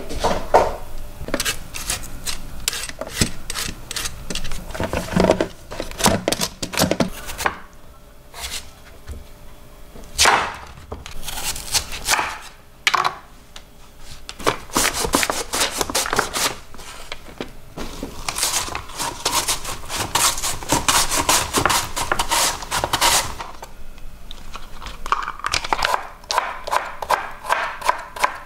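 Chef's knife chopping jicama into matchsticks on a cutting board: runs of quick knife strikes with short pauses between them.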